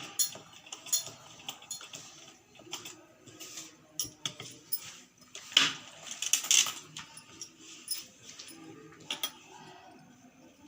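Irregular light clicks and small metallic clatter, a few sharper ones around the middle, as lace is slowly sewn onto a blouse on a sewing machine.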